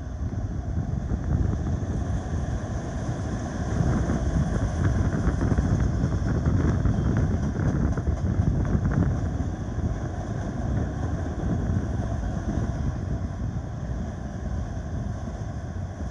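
Double-stack intermodal freight cars rolling past on the rails in a steady rumble, with a rapid clatter of wheels that is loudest in the middle.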